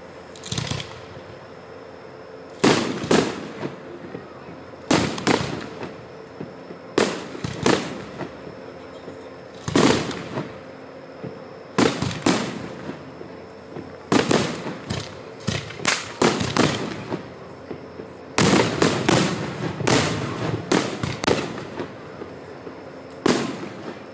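Aerial fireworks shells bursting overhead: sharp bangs every second or two, several in quick runs, each with a short echoing tail.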